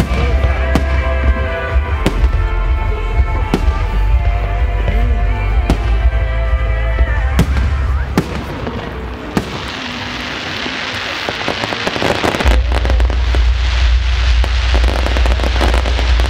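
Fireworks bursting over music playing with the display: sharp bangs about once a second. From about halfway the bangs give way to a dense crackle of many small pops over a low rumble, and the music drops back.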